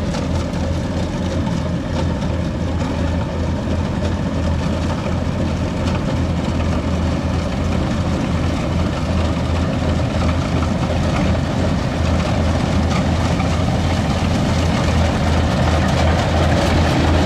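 Kubota DC95GM combine harvester running steadily under load as it cuts flattened, waterlogged rice, growing somewhat louder as it comes closer near the end.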